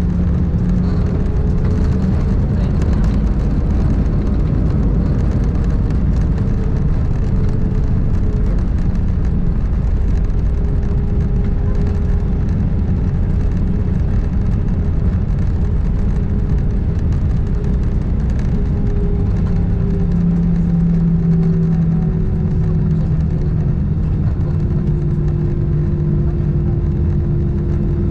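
Airbus A320 cabin noise while rolling on the runway after landing: a steady low rumble of wheels and airframe under the hum of the jet engines, whose tones drift slowly lower.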